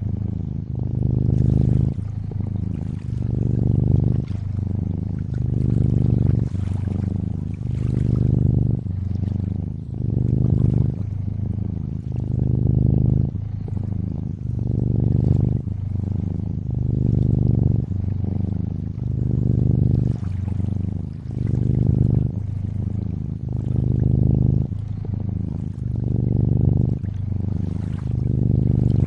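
Domestic cat purring in steady swells, one with each breath in and out, about every one and a half to two seconds. Lapping, trickling water runs faintly underneath.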